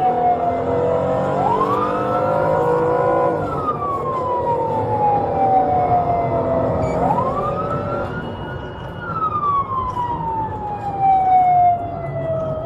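Police car siren wailing, heard from inside the patrol car's cabin. Its pitch rises quickly, holds for about a second, then falls slowly, about twice over, with engine and road rumble underneath.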